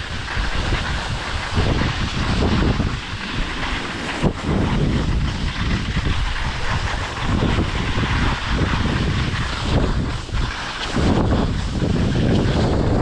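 Strong wind buffeting the microphone in uneven gusts, over a continuous hiss.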